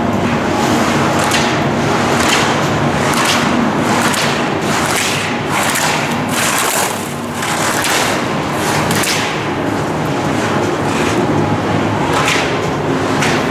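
Skis carving slalom turns on hard snow: a scraping swish of the edges about once a second, with thuds as the slalom gates are knocked aside. A steady low hum runs underneath.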